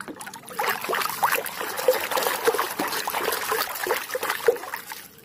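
Water sloshing and splashing in a plastic tub as a hand scrubs a muddy plastic toy underwater, a busy run of small irregular splashes starting about half a second in.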